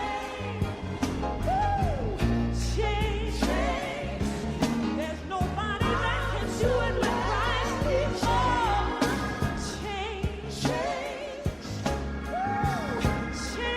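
Gospel music: singing with a wide vibrato over a band with a steady beat and bass.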